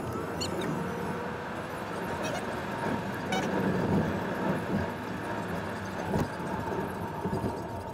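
Road and engine noise of a car driving, heard from inside the cabin, with a few light clicks and knocks.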